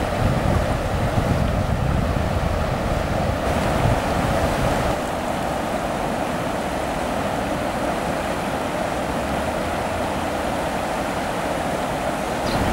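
Steady rushing of the Loire's fast, churning floodwater, with wind buffeting the microphone, heavier in the first few seconds.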